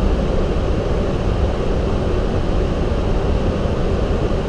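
Steady flight-deck noise of a Boeing 737-800 in descent: an even, low rushing sound of the airliner in flight.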